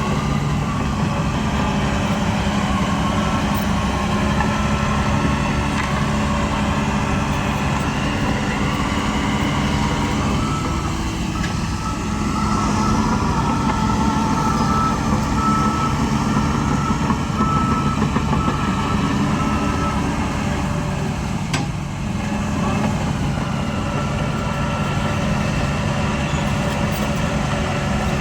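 Heavy diesel earthmoving machinery running steadily under load, with a backup alarm beeping in short, evenly spaced tones partway through.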